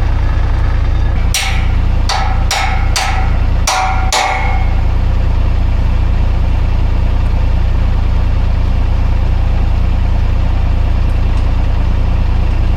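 About six sharp, ringing hammer blows on metal in quick succession, over a steadily idling engine.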